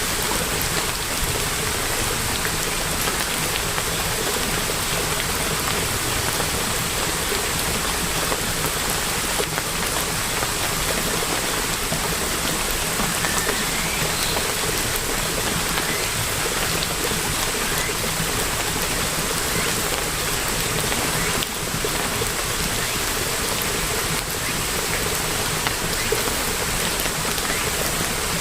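Steady rainfall: an even, unbroken hiss of many raindrops falling.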